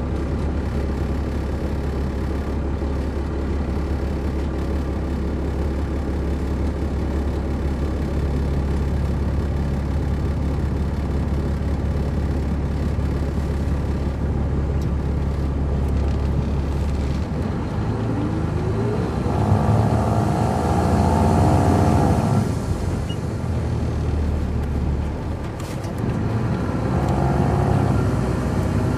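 MCI D4500CL coach's Caterpillar C13 diesel engine heard from on board, running at a steady low hum, then revving up with a rising pitch as the bus accelerates, starting a little past halfway. It eases off briefly, then climbs again near the end.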